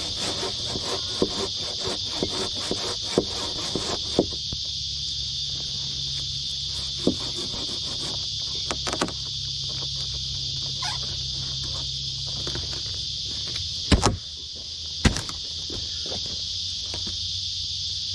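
Insects in the bush keep up a steady high-pitched drone. Over it come quick rhythmic strokes for the first four seconds, then scattered light knocks, with two sharp knocks about 14 and 15 seconds in.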